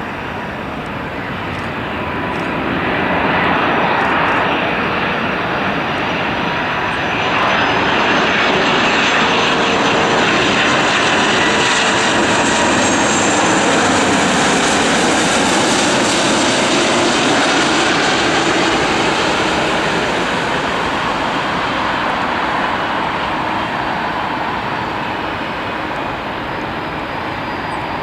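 Airbus A330-300 jet airliner coming in to land, the noise of its two turbofan engines swelling as it approaches and passes, loudest around the middle, then easing off as it moves away. Faint engine whine tones glide in pitch over the broad jet noise.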